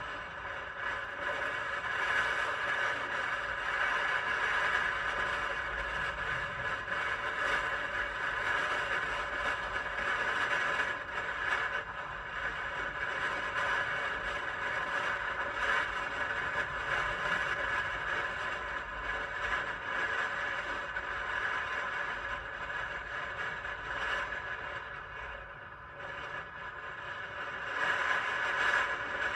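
Sur-Ron electric dirt bike under way: a steady electric motor and drivetrain whine with rattling and low wind rumble. The whine drops off a few seconds before the end, then picks up again.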